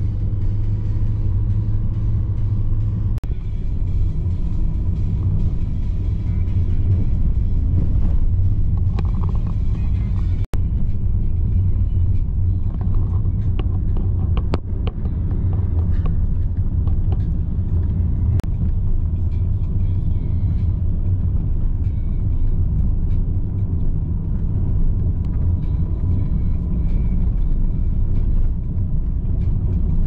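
Car driving, heard from inside the cabin: a steady low rumble of engine and road noise, with a momentary break about ten seconds in.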